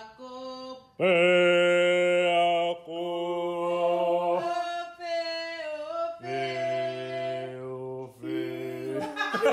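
A family singing together without accompaniment as choir practice: a run of long held notes, each lasting a second or two with short breaks between them.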